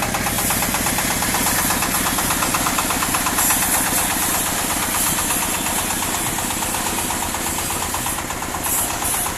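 Single-cylinder diesel engine running steadily at idle, with an even, rapid beat.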